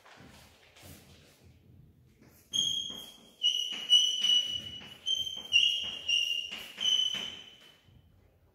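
Chalk squeaking on a blackboard as words are written: a run of about eight short, shrill squeals, one per stroke, beginning about two and a half seconds in, after a few faint soft knocks.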